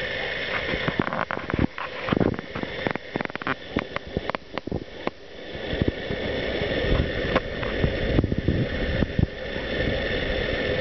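Wind rumbling and buffeting on the camera microphone, with irregular sharp clicks and knocks that are densest in the first half.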